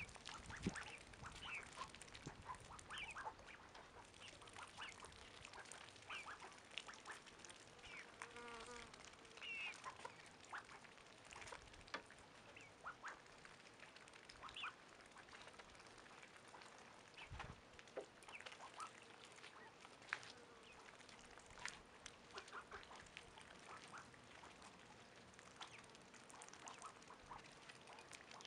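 Domestic ducks dabbling in a shallow muddy puddle: many small quiet clicks and splashes of bills working the water and mud, with occasional short duck calls.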